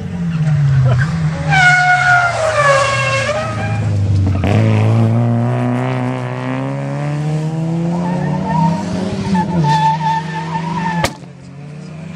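Rally cars at a tarmac hairpin: tyres squeal for a couple of seconds as they turn in, then an engine revs up hard, its note rising steadily as the car accelerates away out of the bend. A sharp click comes near the end, after which it is quieter.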